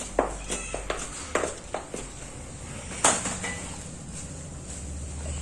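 Hands digging and scraping dry soil in a pot to loosen a thuja plant's root ball for repotting: irregular scrapes and knocks, the loudest about three seconds in.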